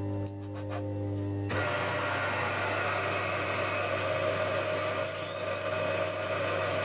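Milling machine spindle running with a steady hum, then from about a second and a half in a steady rasping cutting sound as a drill bit works through the cross hole of a cast iron piston.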